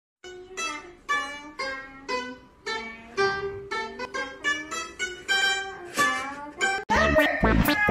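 Round-bodied Chinese plucked lute playing a slow melody of single plucked notes, about two a second, each ringing and dying away. About a second before the end, louder music with a heavy bass cuts in.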